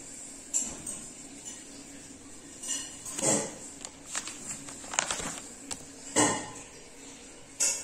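Paper pages of a spiral-bound notebook being handled and turned: a series of short rustles and crinkles, loudest about three seconds in and again a little after six seconds.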